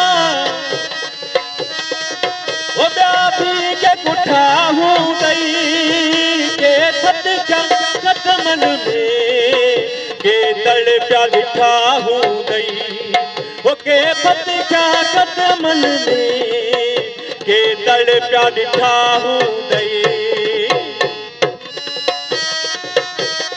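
Live Sindhi folk music: a harmonium holding a melody over a fast hand-drum rhythm, with a male singer's voice through a microphone.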